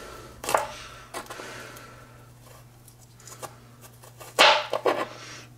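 Chef's knife slicing garlic cloves on a plastic cutting board: a few scattered soft cuts and taps, the loudest a quick cluster about four and a half seconds in.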